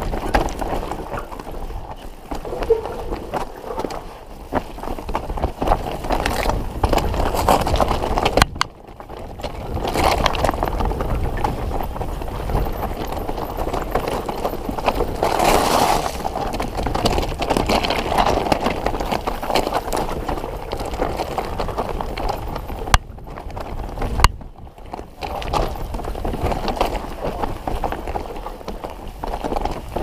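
Mountain bike riding over a rough, rocky trail: tyres crunching over stones and the bike rattling, with a steady rumble and a stream of small knocks, and a couple of sharper knocks late on.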